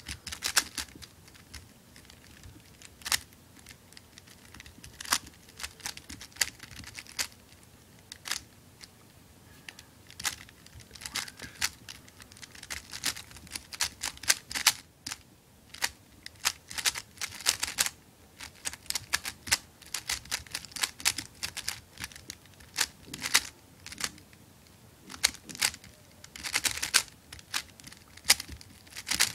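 Dayan Megaminx (non-ridged) being turned fast by hand during a solve: irregular runs of plastic clicks as its faces snap round, coming in quick clusters with short pauses between.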